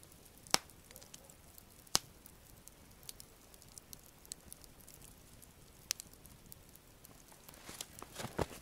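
Small wood campfire of burning sticks over coals crackling faintly, with three sharp pops spread out over several seconds and a brief rustle of movement near the end.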